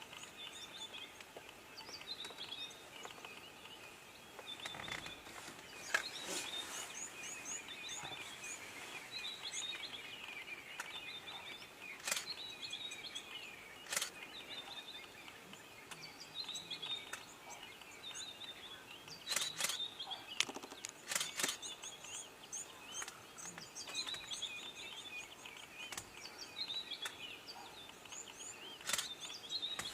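Birds chirping and calling in a continuous chorus of short, quick notes, with a handful of sharp clicks scattered through it.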